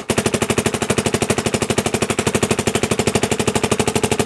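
Dye MXR electronic paintball marker firing a rapid, even stream of shots, emptying a pod of paint on a compressed-air tank.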